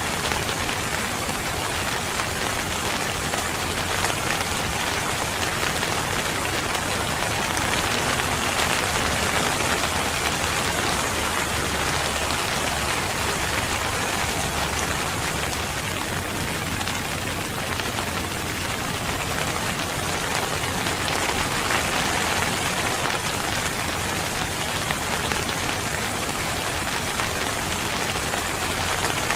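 Steady rain falling, a dense, even patter of drops on surfaces.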